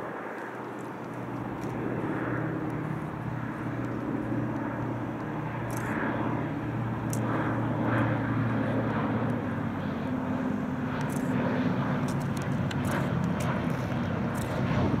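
Junkers Ju 52 trimotor's three radial engines droning, growing louder over the first couple of seconds and then holding steady.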